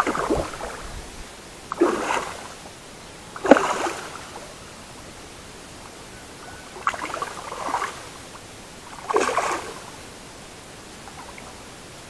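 A small hooked fish, a tarucha, thrashing at the water's surface as it is reeled in. About five short bursts of splashing, a second or two apart, the last one near the three-quarter mark.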